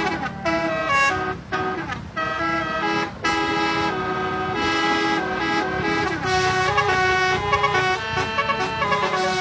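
Basuri telolet musical air horn playing a dangdut melody. Short, clipped notes in the first three seconds give way to longer held notes, over a steady low hum.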